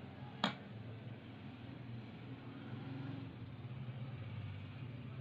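A metal spoon clinks once against a ceramic bowl about half a second in, over a steady low hum.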